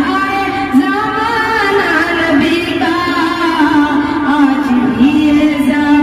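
A boy singing a naat, a devotional Urdu poem in praise of the Prophet, in a solo voice, holding long notes that bend and waver in pitch.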